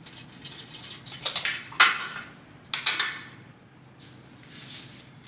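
Handling clatter of a carpenter's tools on a hard floor: clicks and scrapes from a tape measure, a metal handle profile and wooden blocks, with two louder knocks about two and three seconds in.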